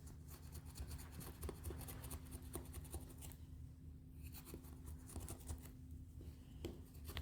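Knife blade sawing through the excess tire-plug strands sticking out of the tread: faint, rapid scratchy strokes in two spells, with a short pause about three seconds in.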